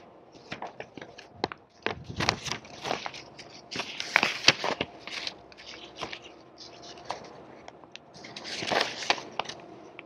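Printed paper sheets rustling and crackling as they are leafed through close to a clip-on microphone, in irregular spells with sharp ticks, busiest from about two to five seconds in and again about nine seconds in.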